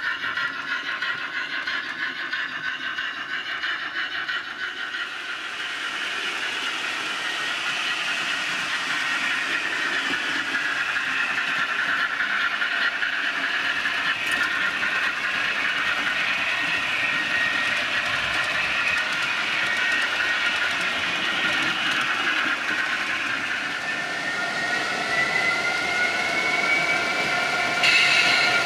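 OO gauge model trains running on the track: a steady whine from the locomotive motors over the rumble of wheels on rail, the pitch drifting as the trains change speed. Near the end the whine rises.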